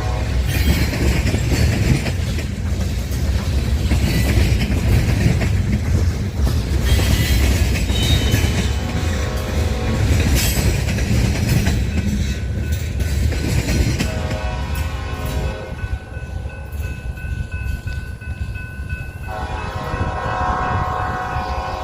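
Union Pacific local freight train passing with a heavy low rumble, its locomotive air horn sounding a long blast about two-thirds of the way in and again near the end.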